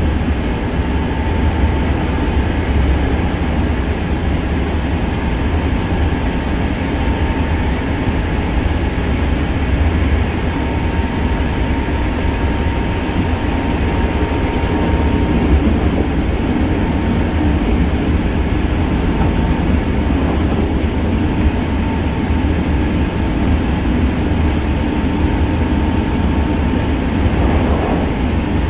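Running sound inside a Hankyu 6300 series train car: a steady, deep rumble from the wheels and running gear on the track, with a faint high whine that fades out about halfway through.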